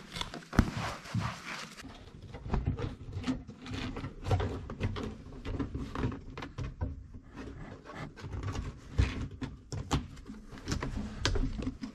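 Scattered clicks, knocks and rubbing as an interior trim panel is worked into place against the car body and its screw holes are lined up.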